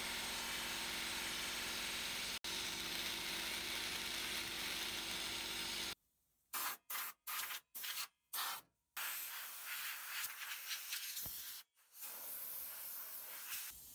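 Handheld sandblasting gun hissing steadily as it blasts the rusty pressed-steel toy truck parts. About six seconds in, the blasting stops. It then comes back in about six short bursts, followed by a longer steady blast with one brief break.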